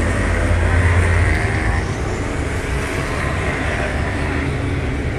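Ice speedway motorcycles racing, their single-cylinder 500 cc methanol engines running hard. The engine pitch rises and falls as the bikes go through the turns, and climbs steeply near the end.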